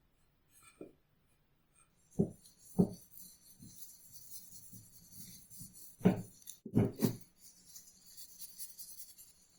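Hand work on an old ax in a workshop: a few dull knocks, two close together about two to three seconds in and three more around six to seven seconds, with a steady high rasping scrape like filing or rubbing between them.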